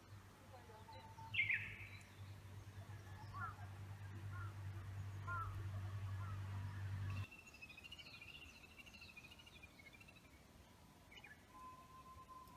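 Wild birds calling: a loud, sharp falling call, then scattered short chirps and a twittering song phrase. A low steady hum lies underneath for the first half and cuts off suddenly.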